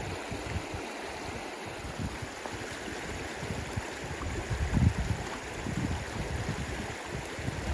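Shallow, fast-flowing river rushing over rocks: a steady hiss of running water, with uneven low rumbles, the strongest a little under five seconds in.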